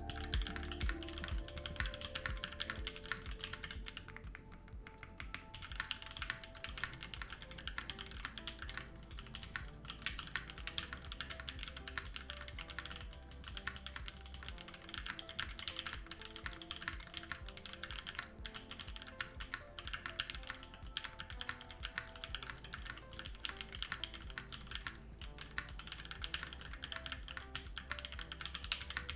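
Typing on a 60% mechanical keyboard with lubed 43Studio Popus switches, a UHMWPE plate and GMK keycaps: a fast, irregular run of keystrokes, briefly pausing about four seconds in. Background music plays underneath.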